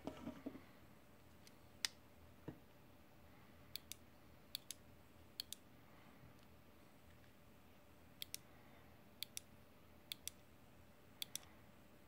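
Small tactile push-buttons on a handheld 3D-printed LoRa pager being pressed, each press a sharp double click of press and release. There are seven presses, three and then after a pause four, about a second apart, with a lone click and a soft knock in the first few seconds and some handling rustle at the start.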